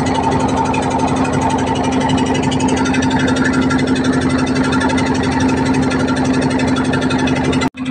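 A fishing boat's engine running steadily under way, with a fast, even beat and a constant pitch. It cuts out for a moment near the end, then resumes unchanged.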